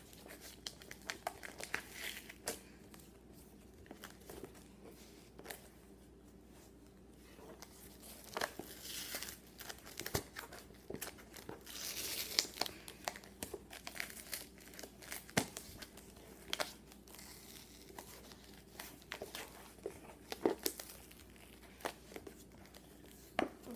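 Packaging being crinkled and torn open by hand, with irregular rustles and sharp snaps and louder stretches of crinkling about a third and halfway through.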